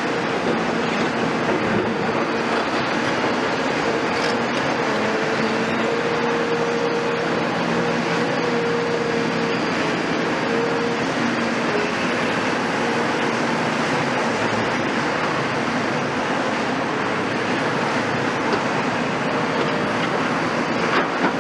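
Caterpillar excavators, a CAT 352 F among them, working on a demolition site: diesel engines and hydraulics running steadily with a wavering whine over a dense mechanical din.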